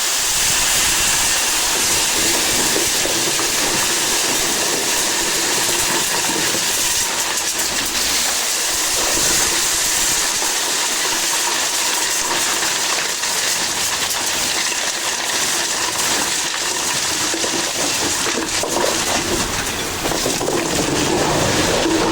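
Industrial concrete-dust vacuum cleaner running, a steady high-pitched rush of air and motor noise.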